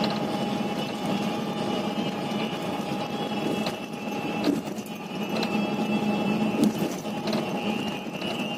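Cabin noise inside an intercity coach bus cruising on a highway: a steady engine drone and road noise, with a few light clicks and rattles.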